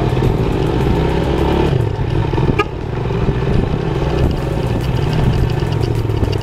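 Motorcycle engine running as the bike rides at low speed, easing off briefly about two seconds in and then pulling again.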